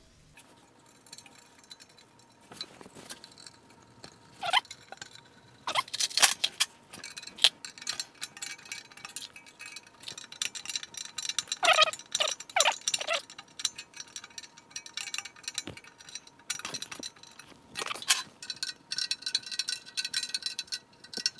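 Metal hand tools clinking and tapping against the engine's fittings, with a few brief ringing clinks, as the gas line fitting is worked in and tightened with a wrench and pliers.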